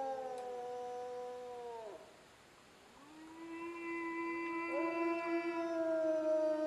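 Grey wolves howling, several long voices overlapping at different pitches. The first howls slide down and die away about two seconds in, and after a short pause new howls rise in and hold steady.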